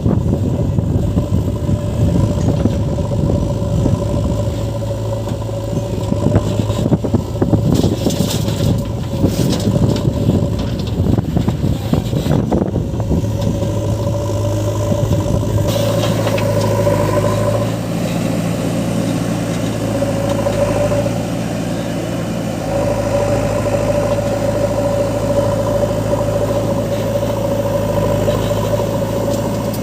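Diesel engine of a JCB 3DX backhoe loader running and working under load, with clattering through the first half. After that it settles into a steadier drone that rises and falls in pitch.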